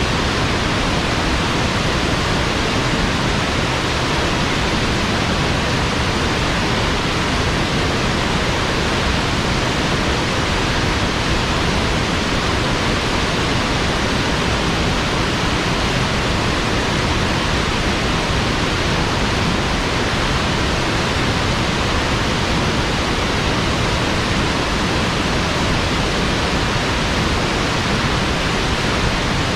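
Steady, even rushing noise that does not change, like a waterfall or wind sound effect.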